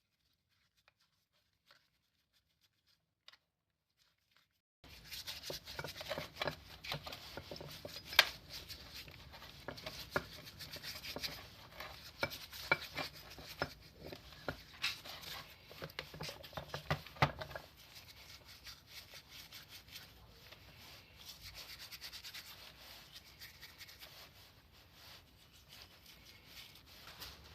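Hand rubbing and scraping of the grinder's metal parts during cleaning, with many sharp clicks and knocks. It starts about five seconds in and turns to a lighter, steadier rubbing a little past halfway.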